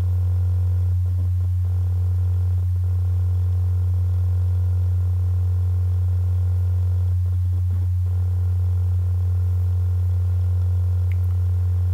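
Steady electrical mains hum on the recording: a loud, constant low tone near 100 Hz with fainter overtones stacked above it.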